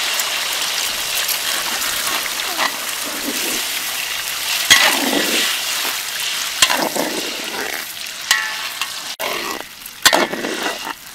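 Beaten egg sizzling on rice in a large hot wok, a steady frying hiss. From about halfway a metal spatula scrapes and stirs through it in separate strokes.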